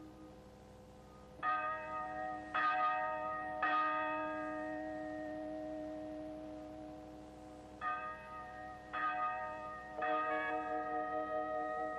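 Church bell ringing: three strokes about a second apart, a long ring-out, then three more strokes starting about eight seconds in.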